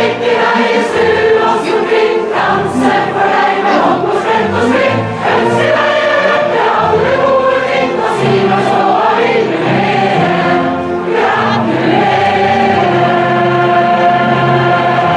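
A choir singing a Norwegian birthday song over instrumental backing.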